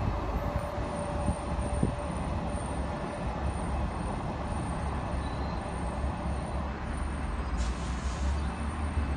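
Steady low rumble of wind and city traffic, with a short hiss near the end.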